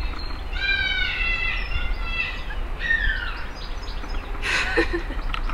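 Steady low rumble of an aeroplane passing overhead, with a long, slightly falling animal call about half a second in and a shorter falling call about three seconds in.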